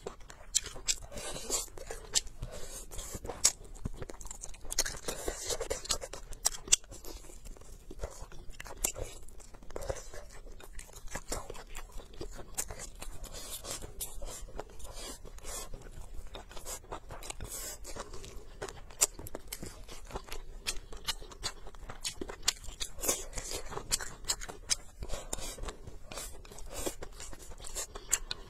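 A person chewing and crunching food at close range, with frequent irregular sharp clicks and smacks of the mouth.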